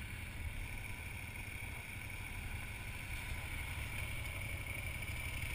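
Motorcycle engine idling at a standstill, with a steady wind rumble on the microphone.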